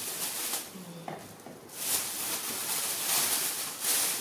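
Thin plastic bag rustling and crinkling in bursts as hands rummage in it and pull vegetables out.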